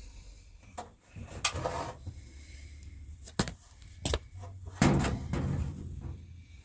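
Handling noise from working on an electric heater's wiring: a few sharp clicks and knocks with bouts of rustling.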